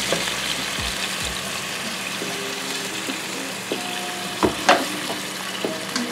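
Oxtail and broth sizzling in a hot frying pan with oil and garlic, stirred with a wooden spoon, with a few knocks against the pan about a second in and again past the middle.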